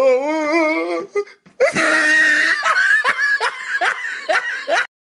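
Hearty laughter: a wavering laugh, then a loud outburst breaking into short, rhythmic bursts of laughing about three a second. It cuts off abruptly near the end.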